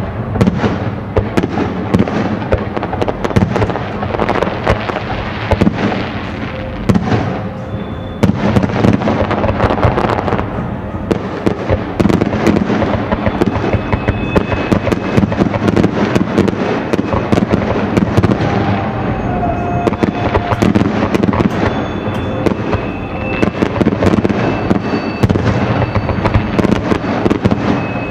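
Aerial fireworks display: shells bursting and crackling in quick, dense succession, a continuous barrage of bangs and pops with no let-up.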